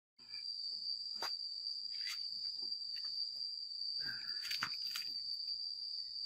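Steady high-pitched drone of insects such as crickets or cicadas, with a few faint clicks scattered through it.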